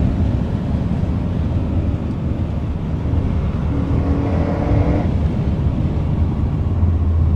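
Renault Mégane RS 265's turbocharged 2.0-litre four-cylinder heard from inside the cabin at speed over steady road rumble. The engine note climbs from under four seconds in and cuts off suddenly about five seconds in.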